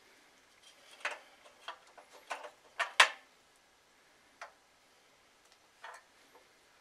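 Light, irregular clicks and scrapes of hand-cleaning at the metal arm of a Shopsmith scroll saw, as dirt and sawdust are wiped out of a pin slot with a rag. The loudest is a close pair of clicks about three seconds in, and they thin out after that.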